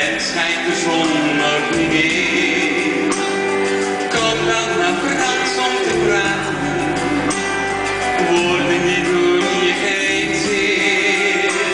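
Live band playing a pop song with a male lead singer and female backing vocals, recorded from the audience.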